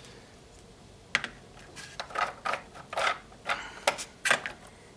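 A run of irregular plastic clicks and rattles, eight or nine over a few seconds, as the 3D-printed PLA RC snowmobile model is handled and shifted on the workbench.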